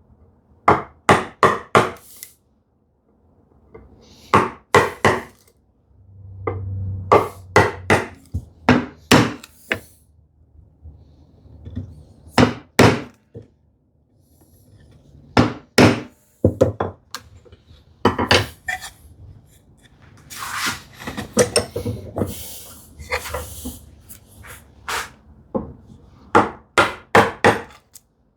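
A chisel being struck repeatedly to chop a housing dado in wood: clusters of sharp knocks with short pauses between them. A stretch of scraping comes about two-thirds of the way through.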